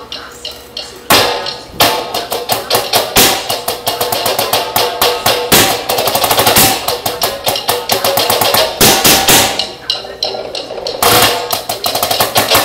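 Drumsticks playing fast rudimental snare-drum strokes on a rubber practice pad, a marching snare solo. The strokes come dense and rapid from about a second in, with a brief pause near the end.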